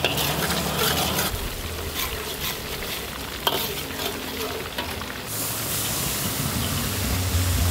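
Aromatics frying in oil in a wok, with a metal spatula and ladle scraping and clinking against the pan. About five seconds in, a load of chopped greens is tipped into the hot oil and the sizzle gets thicker and louder.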